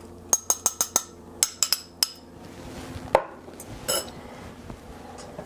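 A metal fork clinking against the rim of a small glass bowl as beaten egg and milk is tipped and scraped out: a quick run of five light, ringing clinks, then four more. A duller knock follows about three seconds in, and one more clink near four seconds.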